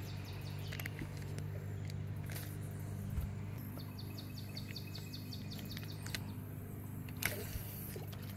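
Outdoor ambience at a pond: a steady low hum under two runs of rapid, high-pitched chirps, one near the start and a longer one in the middle, with a few light clicks.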